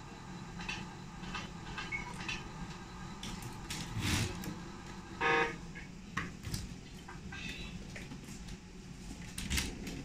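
Clicks and knocks of a model truck and its radio transmitter being handled on a workbench, over steady room noise, with a louder knock about four seconds in and one short pitched tone about a second later.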